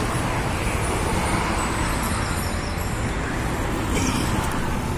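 Steady background noise of road traffic, even and unbroken, with no distinct events.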